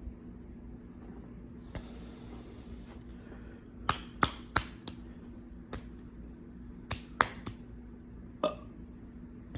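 A person's small burps and sharp mouth clicks after chugging a drink: a breathy exhale, then a loose run of about nine short, sharp clicks and pops from about four seconds in.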